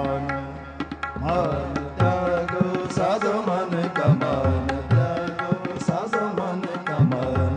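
Tabla playing a steady rhythm in a Gurbani kirtan interlude in Raag Gauri, its bass drum notes bending in pitch. Under it runs a sustained melodic accompaniment whose pitch bends and wavers.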